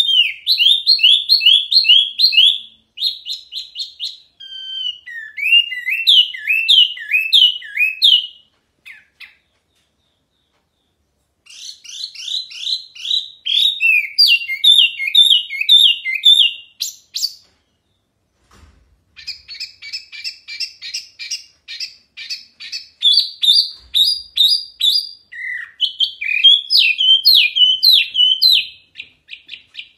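Caged wambi mini songbird singing loudly: long, rapid strings of high, sharp chirping notes repeated several times a second. The bird stops twice for a couple of seconds, about a third of the way in and just past halfway, then resumes.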